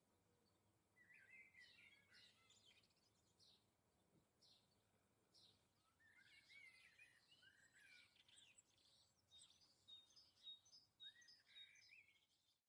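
Small garden birds chirping and twittering faintly, several calls overlapping, with a run of short, evenly repeated high notes near the end.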